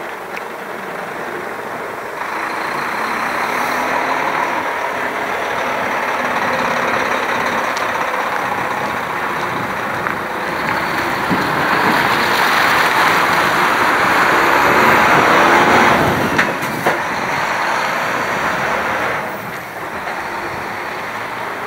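Heavy truck's diesel engine running close by as it pulls away, the sound building over several seconds, loudest about two-thirds of the way through, then falling off near the end. A couple of sharp clicks stand out at its loudest.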